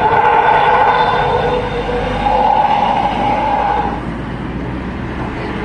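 A tourist bus's telolet horn, a multi-tone musical air horn, sounds a loud held chord. The notes change about two seconds in and the horn stops about four seconds in, leaving the low rumble of the bus and road traffic.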